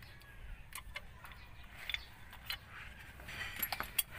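Scattered light metallic clicks and clinks as a rear drum brake shoe and its springs are handled and pulled free of the backing plate, with a cluster of clicks near the end.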